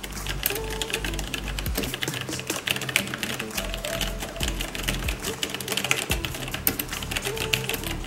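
Fast typing on a mechanical keyboard with Logitech Romer-G Tactile switches: a dense, continuous run of key strikes, many per second. Background music plays underneath.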